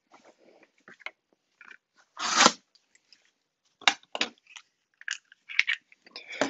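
Corrugated cardboard being torn and handled by hand: a longer rip about two seconds in, then several short crunching rustles.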